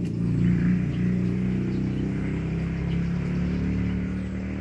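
Low, steady engine hum, holding one pitch throughout.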